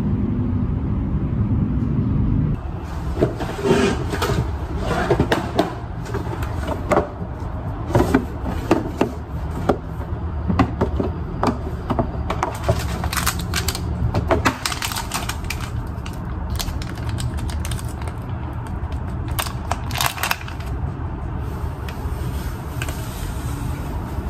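Background music for the first couple of seconds, then a run of sharp clicks and knocks from small objects handled on a kitchen counter, such as a clear plastic box and an enamel mug, over a steady low hum.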